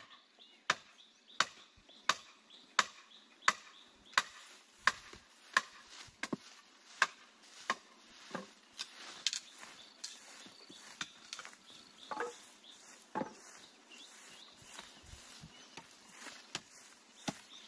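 Wood being chopped with a hand-held blade on a chopping block: sharp strikes about every 0.7 seconds for the first seven seconds, then lighter, irregular knocks.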